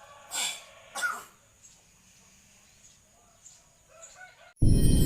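Hill myna giving two loud, human-like coughs about half a second apart, followed by a few soft short calls. Loud music cuts in abruptly near the end.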